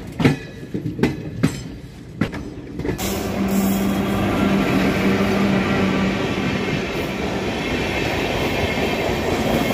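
Train passing on the track. At first there are a few separate knocks of wheels crossing rail joints, then, about three seconds in, a dense, steady rumble and rattle of coaches rolling by. A steady low hum runs through the middle of it.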